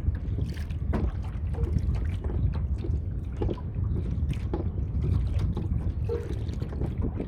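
Wind rumbling on the microphone, with water lapping and splashing against a Hobie Outback kayak's hull in short irregular slaps.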